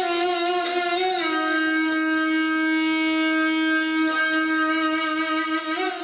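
Violin holding one long bowed note that slips slightly down in pitch about a second in, then is sustained steadily for several seconds before moving to a new note near the end.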